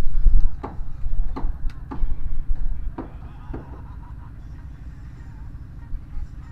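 Five sharp knocks with a short ring, spread irregularly over the first four seconds, over a heavy low rumble that is loudest in the first three seconds and then settles to a steady lower level.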